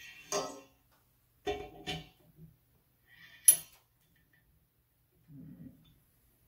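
Small metal parts of a photoelasticity loading frame clinking and knocking as a supporting holder and adjusting nut are fitted onto its threaded spindle by hand: a handful of separate clicks, the sharpest about three and a half seconds in.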